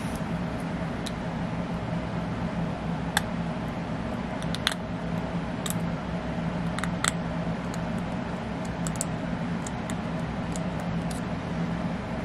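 Steady machine hum at an even pitch, with scattered light clicks and ticks, the loudest a few sharp ones around three, four and a half, and seven seconds in.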